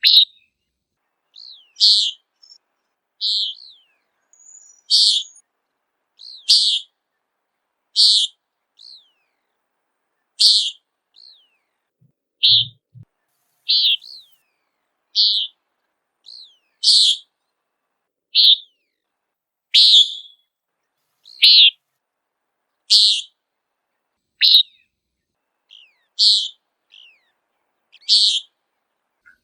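Common nighthawk giving its short, nasal peent call over and over, about once every second and a half.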